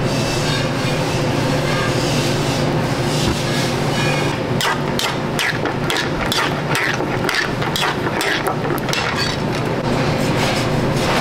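Restaurant kitchen noise: a loud, steady rumble of kitchen equipment, with a quick run of sharp knocks and clatter from about four and a half seconds in until about ten seconds.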